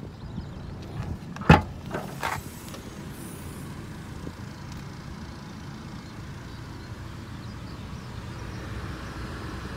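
Tailgate of a 2009 Nissan Tiida hatchback being opened: one sharp latch click about one and a half seconds in, then a softer clunk, over a steady low rumble.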